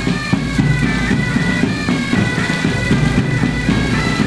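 Music led by a reedy wind instrument playing a melody of long held notes over a low accompaniment.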